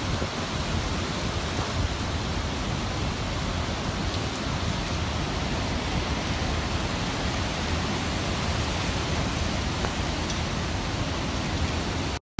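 Steady hiss of heavy hurricane rain, with no separate hits or gusts standing out. It cuts off abruptly just before the end.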